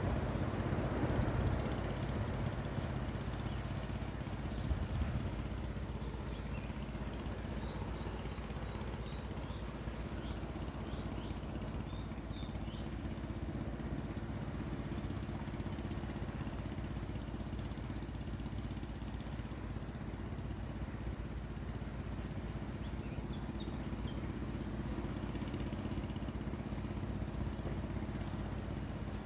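Wind on the microphone over a steady low engine hum, with small birds chirping now and then, most often in the middle stretch; the wind is strongest in the first couple of seconds.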